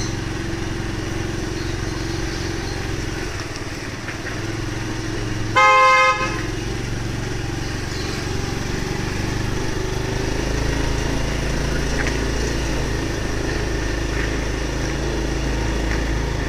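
Steady low rumble of street traffic, with a single vehicle horn honk about five and a half seconds in that lasts about half a second.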